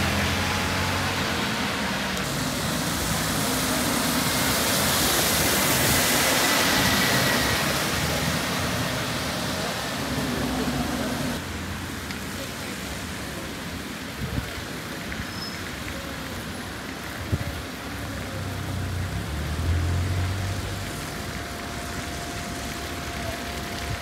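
Street traffic: a passing vehicle's tyre and engine noise swells and fades over the first ten seconds. A lower traffic rumble follows, with a few short knocks.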